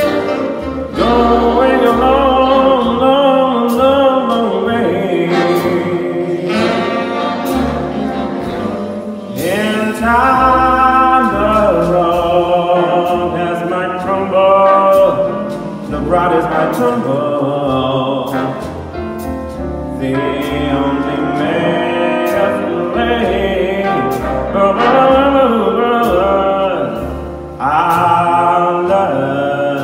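Live jazz band playing: a saxophone solo with bending, gliding phrases over a rhythm section of guitar, double bass and drums.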